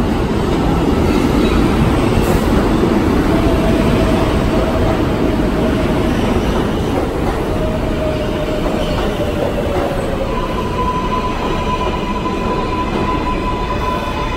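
New York City subway train on the IRT Lexington Avenue Line running on the rails with a loud, steady rumble. A few seconds in, steady whining tones set in, and a higher one takes over about ten seconds in.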